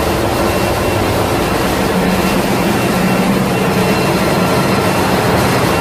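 Oil tanker's engine-room machinery running: a loud, steady mechanical din with a low hum and a few fainter steady whining tones over it.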